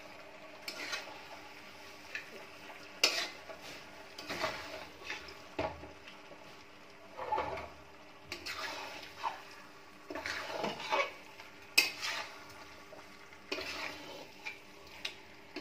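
A metal spatula scraping and knocking against a large metal kadai while chicken pieces in masala are stirred and turned, in irregular strokes with a few sharp clinks, the sharpest about three seconds in and near twelve seconds.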